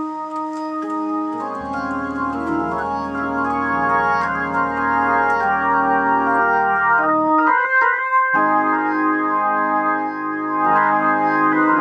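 Hammond organ playing sustained chords through its amplifier, freshly fitted with orange drop capacitors in place of failing cheap ones, as a sound check. Deep bass notes come in about a second and a half in, the chords break off briefly with a change past the middle, then resume.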